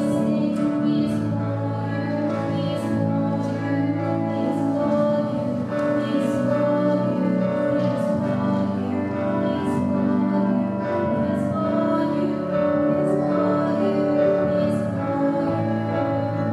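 Live worship band playing, keyboard and electric guitars holding sustained chords, with a woman singing.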